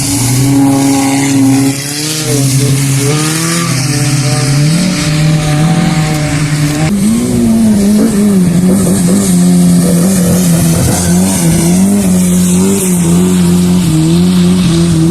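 Rally car engine running hard, its pitch climbing and dropping repeatedly with gear changes and throttle lifts, with a sudden jump in pitch about seven seconds in.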